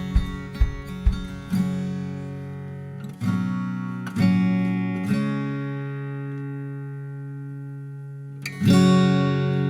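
Background music: acoustic guitar strumming chords, with one chord left ringing for several seconds before the strumming comes back near the end.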